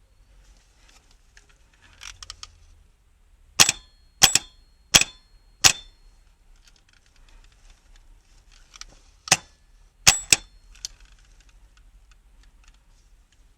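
Sharp metallic clinks with a brief ring: four evenly spaced, about two-thirds of a second apart, then a single clink and a quick double clink a few seconds later, with faint handling noise between.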